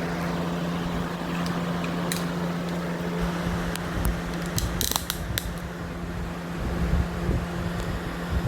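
Air King 20-inch box fan, model 9733, running steadily: a constant motor hum under the rush of air from the blades, with a few light clicks about halfway through.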